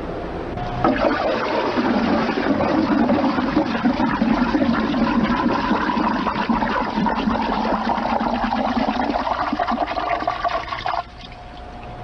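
Water swirling and sloshing in a barrel as a hand stirs it round and round to build a vortex; the sound cuts off suddenly about a second before the end.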